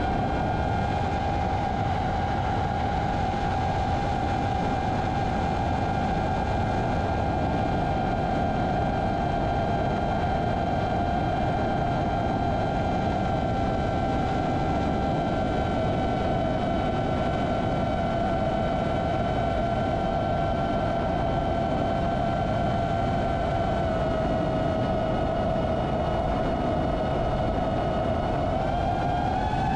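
Diatone Roma F5 v2 five-inch FPV quadcopter's motors and propellers whining steadily in flight, over rushing air noise; the pitch sags a little past the middle and climbs again near the end as the throttle changes.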